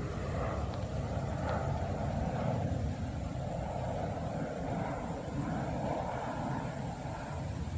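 Steady outdoor background noise: a distant engine drone that swells and fades gently, over a low rumble.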